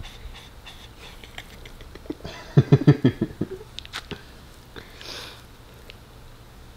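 Handling noise from hugging a small fluffy dog close to the microphone: fur and clothing rustle, with a quick run of loud low thumps about two to three seconds in and a few sharp clicks after. Faint panting from the dog at first.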